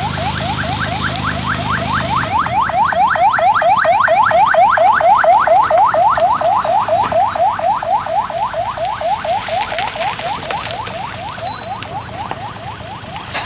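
Ambulance siren on its fast yelp setting: a rising wail repeated about four to five times a second. It grows louder as the ambulance passes close, about five seconds in, then fades as it drives away.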